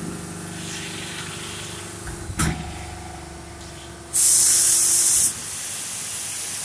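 Vacuum forming machine running with a steady hum; a single clunk about two and a half seconds in, then a loud burst of hissing air lasting about a second, dropping to a quieter steady hiss near the end.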